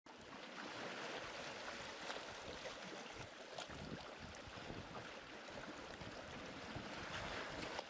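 Seawater washing and swirling among rocks: a steady rushing hiss with a few sharper splashes.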